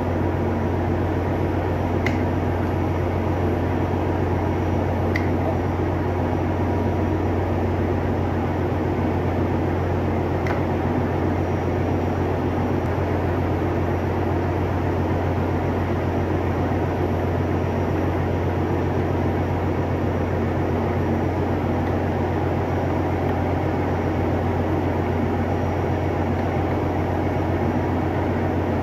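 Ship's engine-room machinery running, a loud steady drone with a deep constant hum. A few light clicks about two, five and ten seconds in, from the filter element and its parts being handled.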